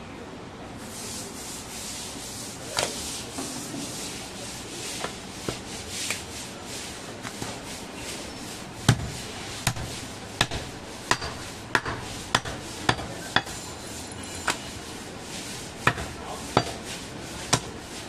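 Raw goat meat being handled and cut, with a rough rubbing and scraping. From about nine seconds in come a dozen or so sharp knocks, roughly one a second, of a butcher's knife striking a wooden chopping block as the rib rack is cut.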